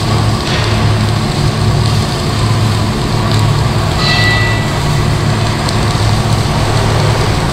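Steady low mechanical hum with a constant hiss over it, and a brief high double tone about four seconds in.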